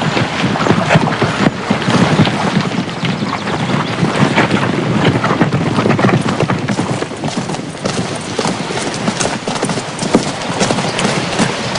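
Hoofbeats of a group of horses running past, many hooves overlapping in a dense patter. They thin out and drop a little in level about seven or eight seconds in.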